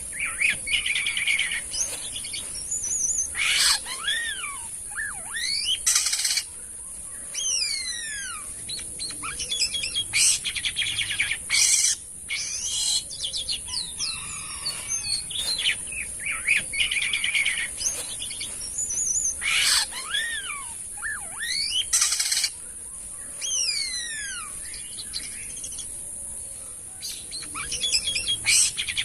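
Jalak kapas starling singing a varied song of sharp clicks, buzzy chattering notes and falling whistles over a steady high-pitched hiss. The same song phrase repeats about every 16 seconds.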